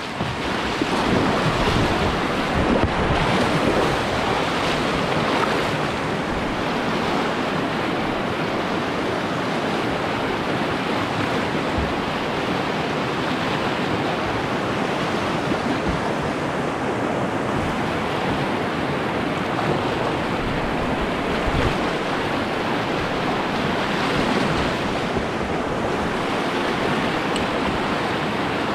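Whitewater of a river rapid rushing steadily, with wind noise on the microphone.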